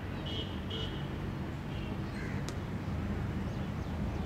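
Outdoor background with a steady low rumble, two short high bird calls near the start, and a single sharp click about halfway through.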